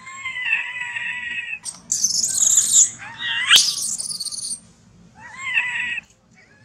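Baby macaque crying in distress: a wavering cry, then shrill screams, a rising screech and one more short cry near the end.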